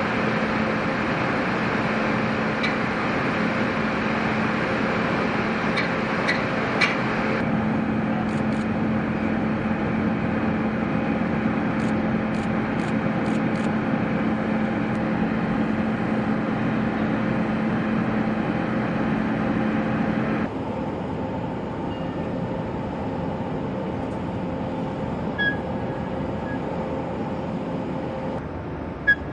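Steady mechanical drone with a constant hum and a few faint clicks. Its sound changes abruptly twice, about 7 and 20 seconds in.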